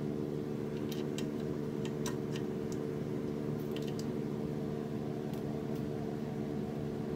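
Light metallic clicks and taps as a golf cart leaf spring and its mounting hardware are worked into place by hand, scattered mostly through the first half, over a steady low hum.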